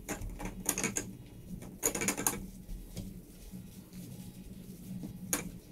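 Microfiber cloth being rubbed over a ceramic bathroom sink: a few short wiping swishes, the longest about two seconds in, over a steady low hum.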